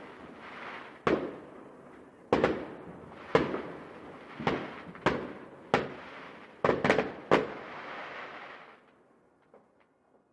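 Fireworks going off: about nine sharp bangs, each followed by a fading hiss, coming closer together near the end and dying away in the last couple of seconds.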